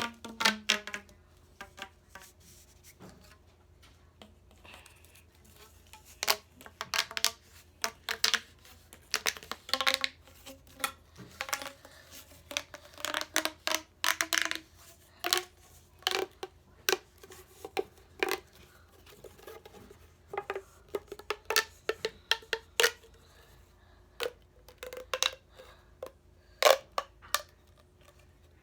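Plastic fidget toy being handled and played with: a long run of irregular clicks, taps and scrapes.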